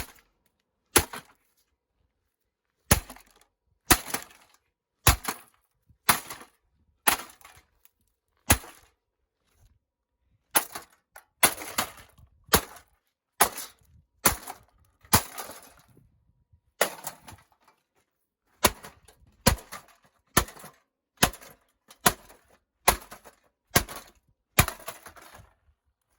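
A ventilation fan being smashed apart: some twenty sharp blows, mostly about a second apart with a couple of short pauses, each followed by a brief crackle of breaking material.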